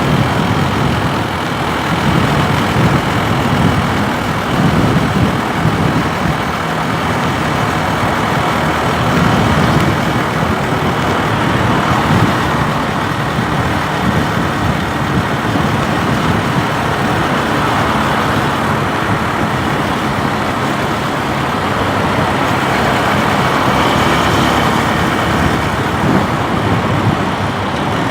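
Motorcycle engine running steadily under a loud, even rushing noise, with no sudden changes.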